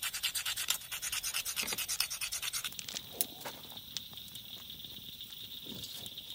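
Fast, even back-and-forth scraping, about ten strokes a second, which stops about three seconds in. After it, a steady high insect chirring goes on, with a few sharp clicks.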